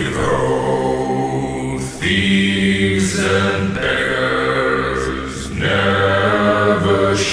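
Background music of deep, droning chanted voices holding long notes, a new phrase starting every two seconds or so.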